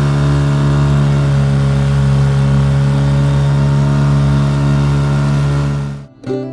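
Boat engine running at a steady speed, an even, unchanging drone with a hiss over it, cut off abruptly near the end.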